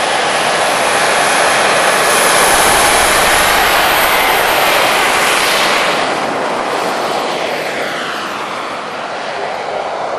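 Radio-controlled model Concorde's jet engines at full power on the takeoff run, a loud rushing whine. About six seconds in, as it rotates and climbs away, the sound slowly falls in pitch and grows quieter.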